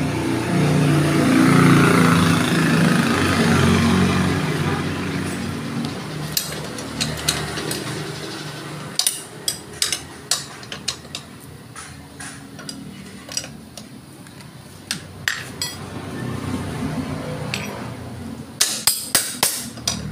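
Scattered metallic clinks and taps from hands and tools working on a motorcycle's rear drum brake and wheel, with a quick run of sharp clinks near the end. A louder, steady, low rumble fills the first few seconds.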